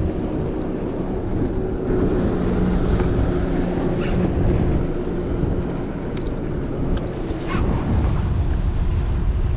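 Wind buffeting the microphone over a low steady motor hum from the boat, with a few faint light clicks.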